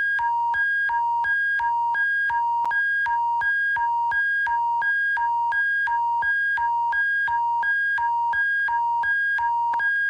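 Alberta emergency alert attention signal: two electronic tones, a lower and a higher, alternating rapidly and evenly, about two of each per second, over a faint steady low hum.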